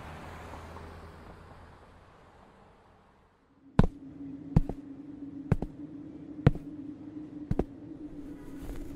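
A low rumble fades away to near silence; then, about four seconds in, slow footsteps on pavement begin, a sharp step roughly once a second, over a steady low hum.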